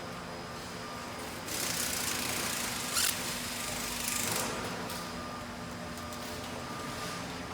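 Bicycle assembly-line factory noise: a steady machinery hum, with a hiss starting about one and a half seconds in and brief louder bursts of tool noise about three and four seconds in.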